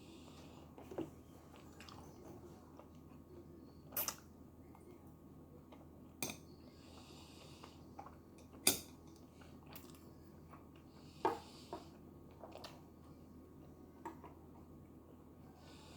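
Someone eating tteokbokki: soft chewing and mouth sounds, broken by about seven sharp clicks of utensils against the dish.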